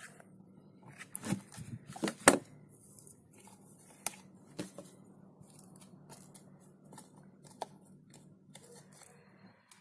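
Light handling sounds: scattered soft clicks and crackles as dry moss is pressed into the gaps between glued-on birch bark pieces, with the sharpest click a little over two seconds in. A faint low hum runs underneath.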